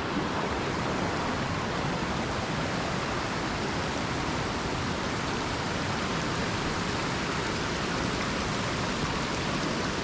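Steady rushing of a large mountain stream, an even water noise with no breaks.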